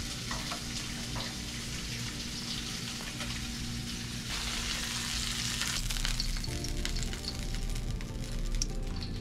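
Food sizzling and crackling in hot oil in a frying pan. Background music comes in softly about two-thirds of the way through.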